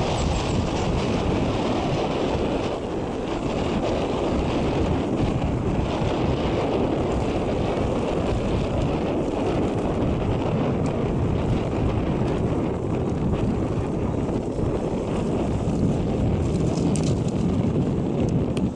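Steady wind rumble buffeting the microphone of a camera on a moving vehicle, with road noise underneath.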